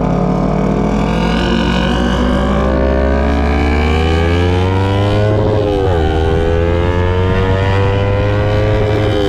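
A motorcycle engine pulling hard under acceleration, its pitch climbing slowly, with a brief drop at a gear change about six seconds in and another near the end.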